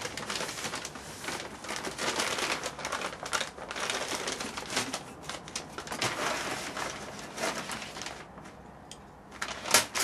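Plastic packaging crinkling and rustling as it is handled, with quick irregular clicks and crackles; it quietens briefly near the end, then picks up louder.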